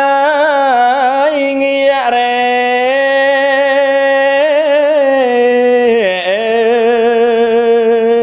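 Smot, Khmer Buddhist chanted verse, sung solo by a male monk: long held vowel notes with wavering ornaments, the pitch stepping down about six seconds in.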